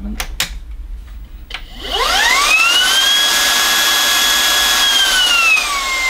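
Lupe Pure cordless stick vacuum: a couple of button clicks, then its motor spins up with a rising whine to a loud, steady high-pitched run. Near the end the pitch eases down to a slightly lower steady level as the suction power setting changes.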